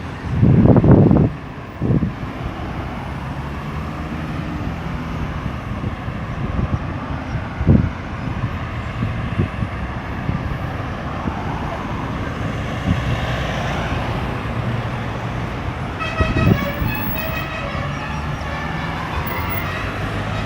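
Steady road traffic at a busy roundabout: engines and tyres running, with a loud rumble in the first second and a few short thumps. A vehicle horn sounds briefly about sixteen seconds in.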